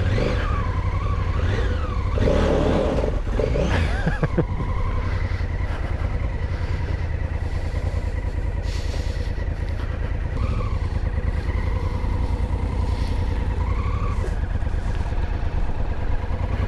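Honda Africa Twin CRF1000's parallel-twin engine pulling away and riding at low speed. Its pitch rises a couple of times in the first few seconds as it accelerates, then it runs steadily.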